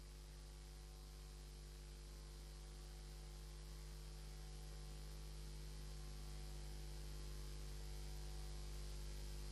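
Faint, steady electrical mains hum: a low buzz made of several steady tones over a light hiss, slowly growing a little louder.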